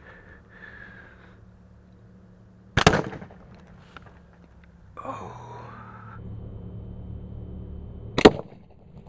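Sharp bangs: one about three seconds in, and the loudest near the end, the burst of a 2-litre plastic bottle pumped to 80 psi inside a jack-o-lantern as a slingshot dart strikes it.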